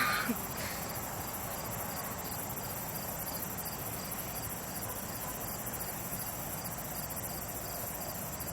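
Crickets chirping steadily in a chorus, a high pulsing trill with evenly spaced beats.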